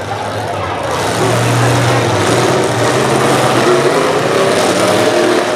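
Engines of full-size demolition derby trucks running hard, a loud mix of motor hum and exhaust noise that builds about a second in.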